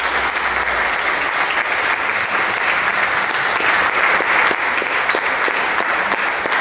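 Audience applauding: many hands clapping steadily throughout.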